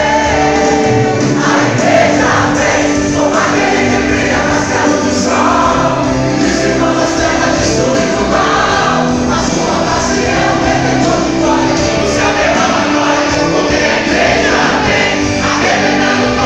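Live gospel worship music in a church hall, with the whole congregation singing along loudly.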